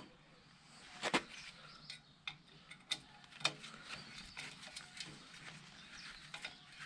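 Scattered sharp metallic clicks and knocks of hand tools and exhaust parts being worked loose, irregular and a second or so apart, over a faint hiss.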